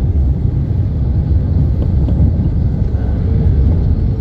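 Steady low rumble of a moving car heard from inside its cabin: engine and tyre-on-road noise.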